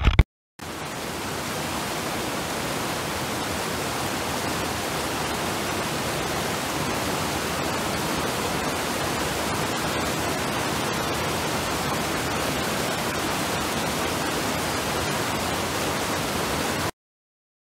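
A brief loud burst, then a fast mountain stream rushing over rocks: a steady, even rush of whitewater that cuts off suddenly near the end.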